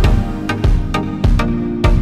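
Background music: held notes under a steady beat that strikes a little under twice a second.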